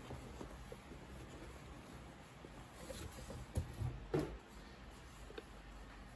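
Quiet handling sounds of packaging being unboxed by hand: faint rustles and light taps, then three short, louder knocks a little past halfway as a small card box is handled.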